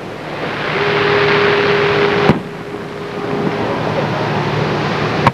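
Aerial fireworks shells bursting at a distance: a sharp boom about two seconds in and another at the very end. A steady rushing noise lies underneath, with a faint steady tone for a few seconds.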